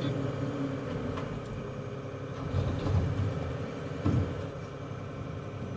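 Steady low rumble inside a car's cabin, with a couple of brief low thumps about three and four seconds in.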